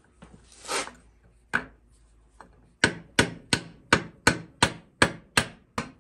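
Rubber mallet knocking on the end of the clutch shaft in a 66/80cc motorized bike engine's clutch case held in a vise, driving the shaft and its spring out. One blow, then after about a second a quick even run of about nine blows, roughly three a second.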